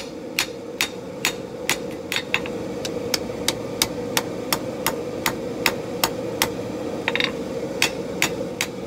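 Blacksmith's hammer striking a red-hot steel knife blade on an anvil, about two to three blows a second with a short break about seven seconds in. This is the forging of the edge bevels and the bringing of the point to the blade's center line.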